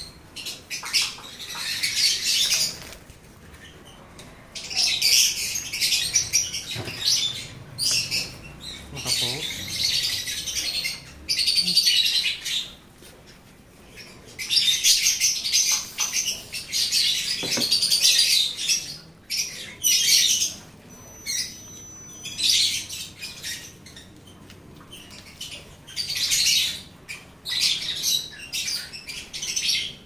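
Plastic fabric-softener sachet crinkling loudly in repeated bursts as it is handled and cut open with scissors.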